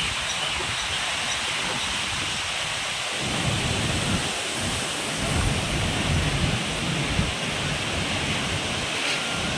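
Heavy rain hissing steadily, with a low rumble of thunder rolling in about three seconds in and dying away a few seconds later.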